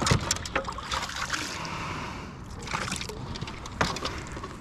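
A bass being handled for measuring in a kayak: scattered sharp knocks and clicks against the hull over a steady wet hiss of dripping, trickling water.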